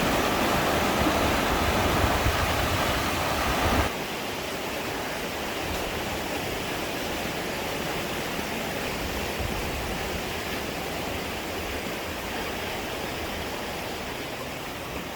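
Rushing water of waterfalls and a river, a steady noise; it is louder for the first four seconds, then drops suddenly to a lower, even rush.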